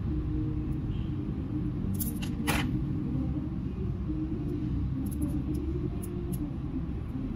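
Steady low rumble, with a few small sharp clicks about two seconds in and again around five to six seconds in.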